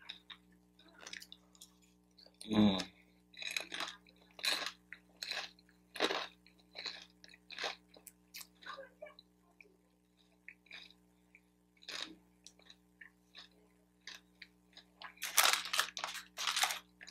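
Chewing and biting on a wonton, with wet mouth sounds and some crunch, in short irregular strokes about once a second. Near the end, a white paper takeout bag crinkles as it is picked up.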